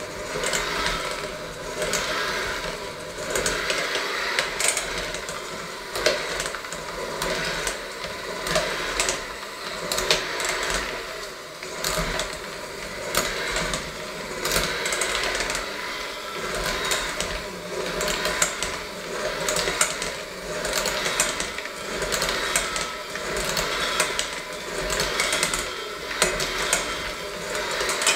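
Electric hand mixer running with spiral dough hooks, kneading a stiff dough in a stainless steel bowl. Its motor runs steadily while the loudness swells and dips about once a second, with frequent sharp clicks.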